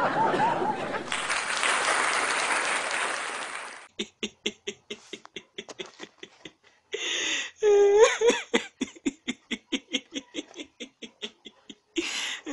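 A man laughing hard in quick 'ha-ha' bursts, several a second, breaking into a long, swooping laugh about seven seconds in. This follows about four seconds of a dense crowd-like noise of laughter and clapping at the start.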